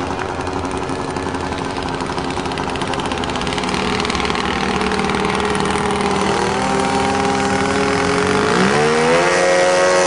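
Radio-controlled float plane's engine running at low throttle while it taxis on the water, then opened up in two steps, about six and nine seconds in, rising in pitch as the takeoff run begins.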